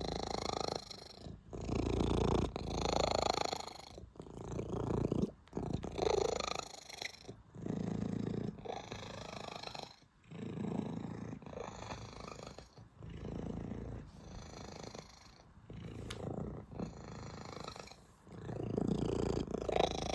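Domestic cat purring loudly and contentedly while being stroked. The purr comes in even phases, each about a second long, with a brief break between breaths.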